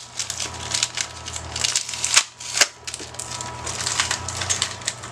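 Thin clear plastic bag crinkling and crackling as it is pulled and peeled off a small plastic orchid pot by hand, with a couple of sharper clicks about two seconds in.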